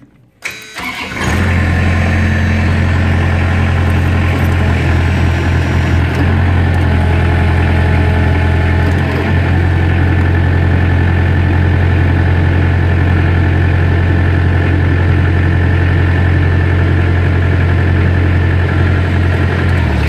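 Gehl 4625 skid steer's engine started with the key, catching about a second in and then running steadily.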